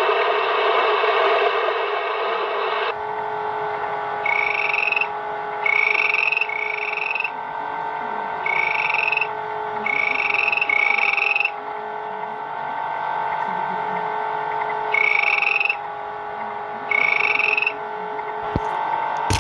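VTech electronic toy playing its sound effects: a steady buzzing drone with eight short rising chirps over it, coming in groups of one to three.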